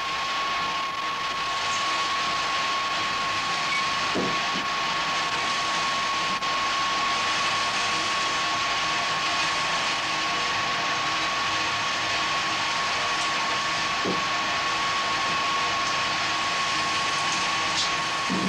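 Steady hiss carrying one constant high-pitched tone that holds at the same pitch throughout. A few faint soft knocks come about four and fourteen seconds in.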